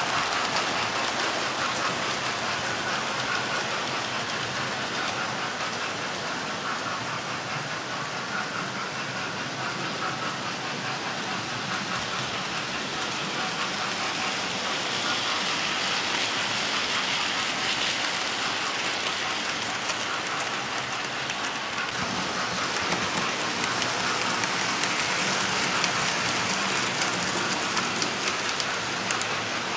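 Several model trains running at once around a layout's tracks: a steady, dense rattle and clicking of small wheels on the rails.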